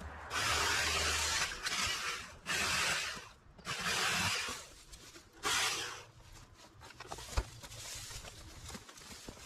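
Hand garden work: about five scraping strokes in quick succession, each under a second long, then softer rustling with a single sharp knock about seven seconds in.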